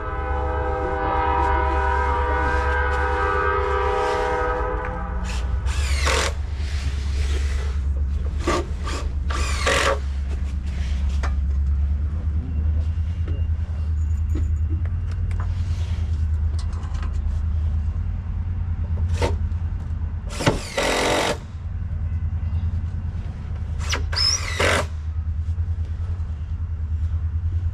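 Train horn sounding one sustained chord for about five seconds over a steady low rumble, followed by scattered sharp knocks.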